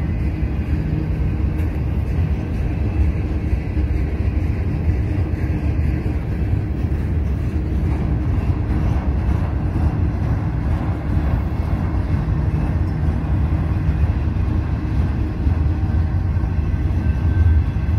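Norfolk Southern intermodal freight train of double-stack container cars passing, a steady low rumble that carries on without a break.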